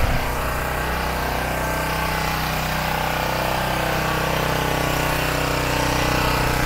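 Small portable gasoline generator running at a steady speed close up, an even engine drone that holds constant throughout.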